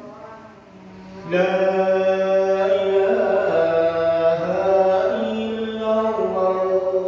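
A man chanting the Islamic call to prayer (adhan) into a handheld microphone: a short lull of about a second, then one long drawn-out phrase whose pitch steps up and down between held notes.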